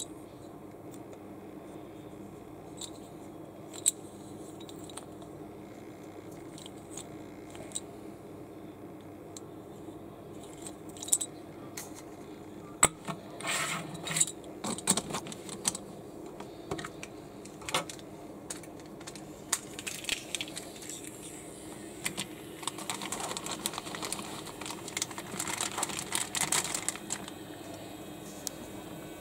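Wooden toy locomotive and its wheels handled against plastic toy-train track: scattered sharp clicks and knocks, growing busier as it is set on the rails, then a few seconds of steady clattering rattle near the end.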